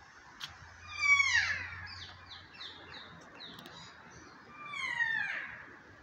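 Kākā (New Zealand parrot) calling: two loud, harsh calls falling in pitch, one about a second in and one near the end, with a run of short quick notes, about four a second, between them.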